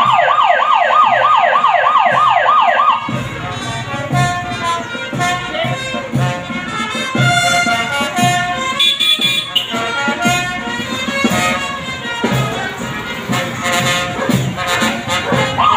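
A siren sounding in fast rising yelps, about four a second, for the first three seconds and again at the very end. In between, a brass band plays a tune over a steady beat.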